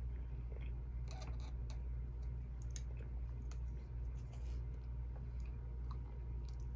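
Light eating sounds: a plastic fork clicking and scraping on a plate, fingers picking at chicken, and chewing, heard as scattered small clicks and taps. A steady low hum runs underneath.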